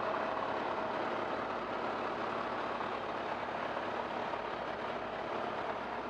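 Heavy machinery running steadily: an even mechanical din with a faint steady whine that is plainest in the first few seconds.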